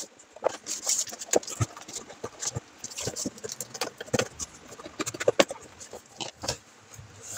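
A courier parcel's wrapping being pulled open by hand: rustling and crinkling with irregular clicks, scrapes and taps throughout.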